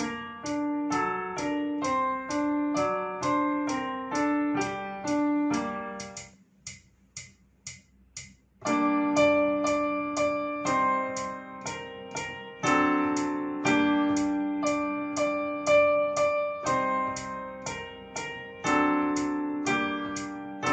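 Piano-style keyboard music: a steady run of struck notes about three or four a second, thinning to a few soft notes for a couple of seconds near the middle before fuller, held chords come back.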